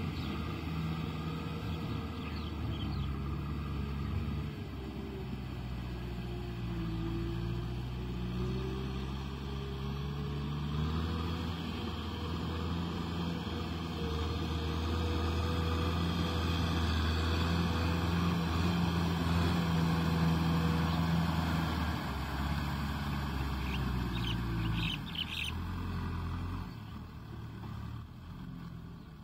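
Kubota M6040SU tractor's diesel engine running steadily under load while driving a rotavator through wet mud. It is loudest in the middle and grows quieter near the end.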